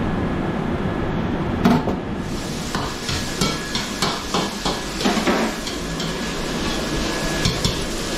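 Kitchen clatter: a series of irregular sharp knocks from cooking utensils, starting about two seconds in, over a steady low roar.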